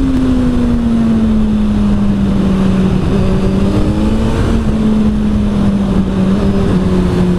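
Kawasaki Z900's inline-four with an Arrow exhaust, heard on board while riding. The engine note eases down a little over the first two seconds, then holds steady under heavy wind and road noise.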